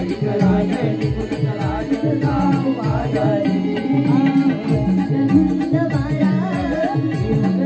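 Marathi naman folk song: a mridang drum beats a quick, steady rhythm under a sung, wavering melody.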